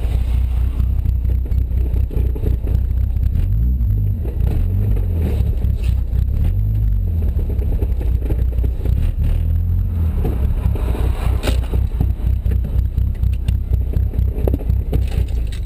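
A Chevy Cobalt's Ecotec 2.2-litre four-cylinder with a Corsa cat-back exhaust, heard from the car itself while it drives slowly in traffic: a steady low engine and exhaust drone with road rumble. The engine note wavers a few seconds in. A single sharp click comes about eleven seconds in.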